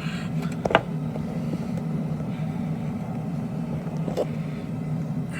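Forge running at forging heat with a steady low hum, broken by a sharp knock under a second in and a fainter one about four seconds in.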